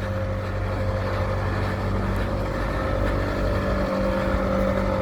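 Motor vehicle engine running with a steady, unchanging hum.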